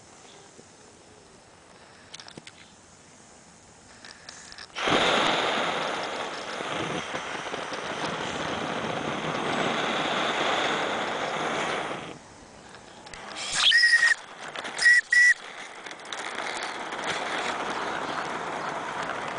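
Live-steam 16mm-scale De Winton locomotive: a sudden loud hiss of steam about five seconds in that holds for some seven seconds and cuts off, then a few short high-pitched tones, then a steadier, quieter hiss of steam as the engine starts from cold.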